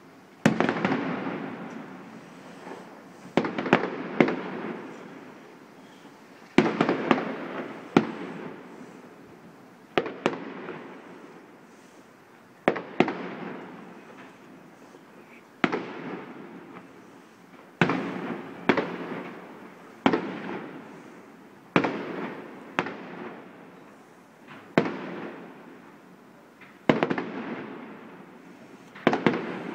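Aerial firework shells bursting at a fireworks display: a sharp bang every two to three seconds, sometimes two in quick succession, each echoing and fading over a second or two with smaller pops.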